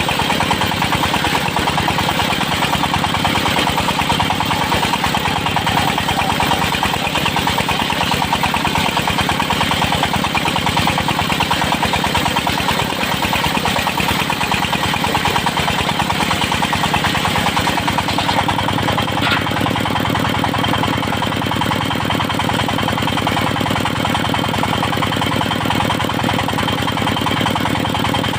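Engine-driven circular sawmill running steadily with a fast, even engine beat. About two-thirds of the way through, the sound changes: the high hiss drops away and the low hum shifts.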